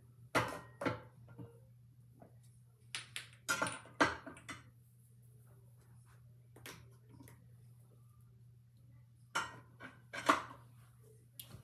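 Skincare bottles and jars being picked up and set down on a bathroom counter: short clattering knocks in a few quick bunches, loudest about four seconds in and again near the end.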